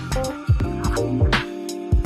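Background music with a steady beat of deep kick drums under sustained chords.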